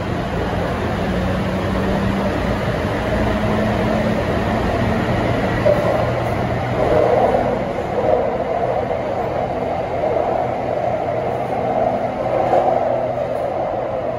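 Taipei Metro C301 train running between stations: a steady rumble of wheels on rail with low humming tones from the traction motors, growing somewhat louder and rougher from about six seconds in.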